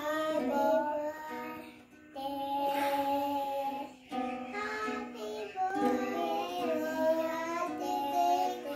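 A young girl singing a melody, with a small toy ukulele strummed alongside. The singing breaks off briefly about two seconds in and again about four seconds in.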